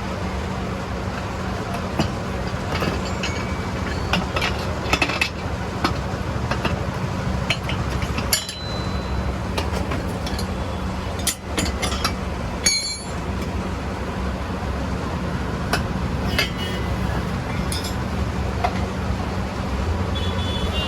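Scattered metallic clinks and knocks of hand tools on a motorcycle wheel during puncture repair, over a steady low mechanical hum.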